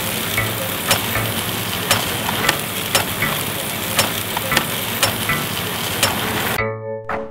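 Espresso grinder grinding coffee beans into a portafilter: a steady gritty hiss with a sharp click about twice a second. It cuts off suddenly near the end and music begins.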